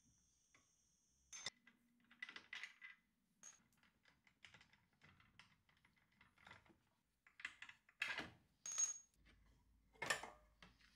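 Faint, irregular metallic clicks and clinks of a ratchet and socket working the exhaust mounting bolts on a scooter, with a short high metallic ping about nine seconds in and a few louder knocks near the end.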